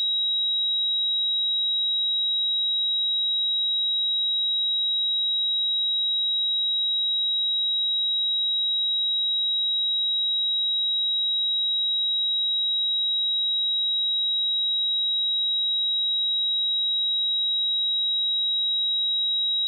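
A steady, continuous 3835 Hz sine-wave test tone: one pure high-pitched tone held at a constant level, used for checking speakers and headphones.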